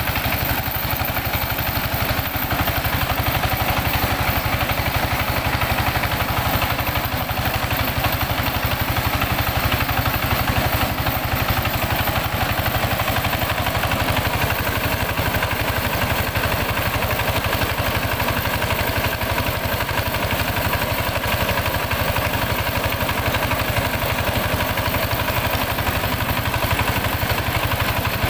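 The engine of a mobile mini rice huller running steadily at one speed while it drives the milling machinery, with a fast even pulse underneath.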